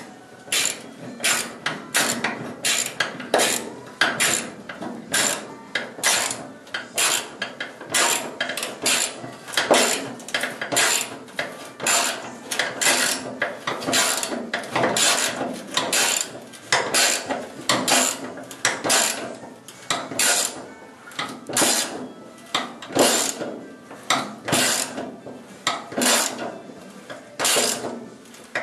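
Ratchet wrench worked back and forth in quick short strokes, each stroke a brief run of metallic clicks, about two strokes a second.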